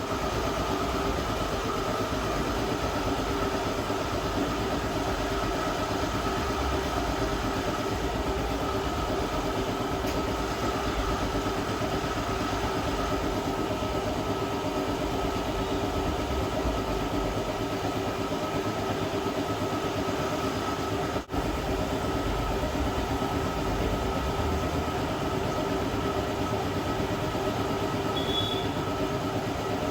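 A hot-air plastic welder's blower motor running steadily, a constant whir with a steady whine, broken off for an instant about two-thirds of the way through.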